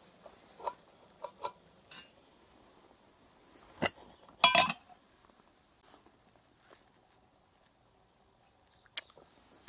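Metal camp cookware being handled on a Trangia stove: light clicks and clinks as the aluminium kettle is moved off, then a loud metallic clank about four and a half seconds in as the frying pan is set down on the stove.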